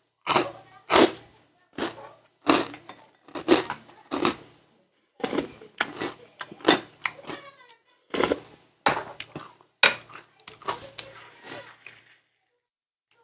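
Close-up eating sounds: a series of irregular crunches and chews, one every half second or so, which stop about a second before the end.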